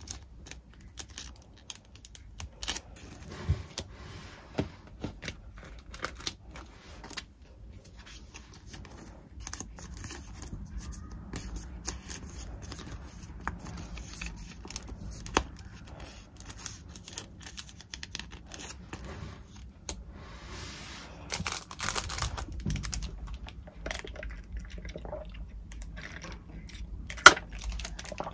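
Hands handling paper and plastic stationery packaging at a desk: crinkling, rustling and tearing, with scattered small taps and clicks of items being set down, and a sharp click near the end.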